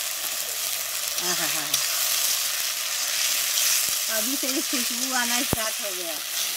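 Onions and a freshly ground masala paste sizzling hard in hot mustard oil as a tadka, stirred now and then. There is a sharp knock about five and a half seconds in.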